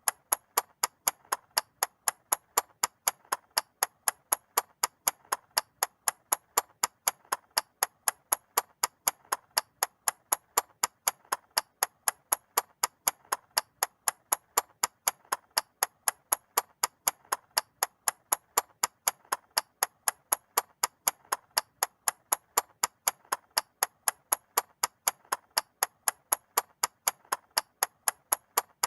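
Mechanical clock ticking: sharp, evenly spaced ticks, several a second, at a steady rhythm.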